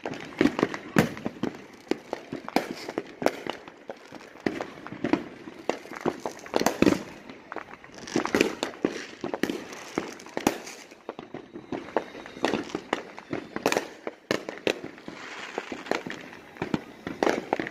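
Fireworks and firecrackers going off: many sharp bangs and crackling pops, irregularly spaced and sometimes several a second.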